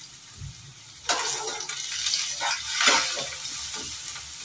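Chopped onions and green chilli sizzling in butter and ghee in an iron kadhai. About a second in, a slotted steel spatula starts stirring and scraping them around the pan, and the sizzling grows louder.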